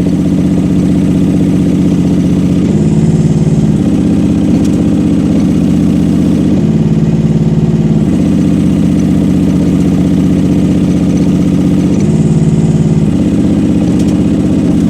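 Rippa R10 mini excavator's gasoline engine running steadily with the hydraulic pump engaged, its note shifting briefly three times as the track extension cylinders push the tracks out and pull them back in.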